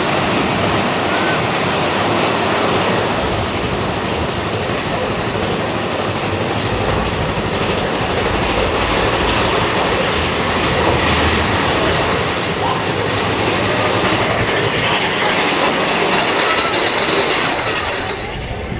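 Big Thunder Mountain Railroad mine-train coaster cars rolling along the track: a loud, steady rattle and rumble of wheels on rail.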